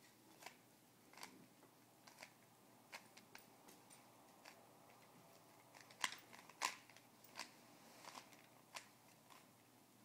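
Plastic Rubik's cube layers being turned by hand: short, faint clicks at an irregular pace, about one or two a second, the loudest pair about six seconds in.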